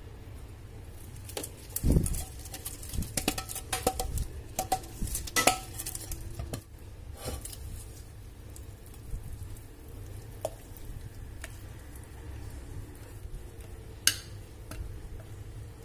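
A metal spoon clinking and scraping against a glass baking dish, a cluster of sharp clinks with a brief ring in the first several seconds, the loudest about two seconds in. It goes quieter while batter is poured, then there is a single sharp tap near the end as a spatula scrapes batter from the bowl.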